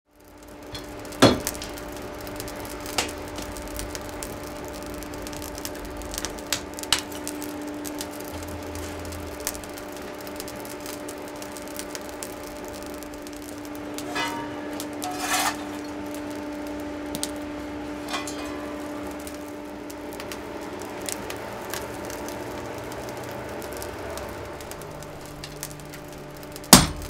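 Blacksmith's workshop: a steady low hum with scattered metal clinks and knocks, one sharp knock about a second in. Near the end, a hammer strikes red-hot iron on an anvil, the loudest blows of all.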